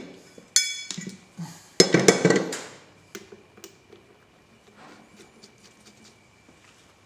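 Steel parts and tools clanking and clinking against a heavy steel lathe chuck: one ringing clank about half a second in, a louder burst of clanks around two seconds, then light metallic clicks as nuts on the chuck studs are handled.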